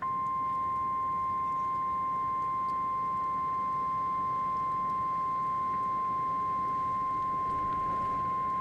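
A loud, steady electronic alert tone held at one pitch. It switches on abruptly and does not glide up or down.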